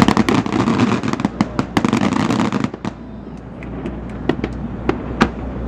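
Aerial fireworks going off: a rapid, dense crackle of many pops for the first two and a half seconds or so, then single sharp bangs spaced out.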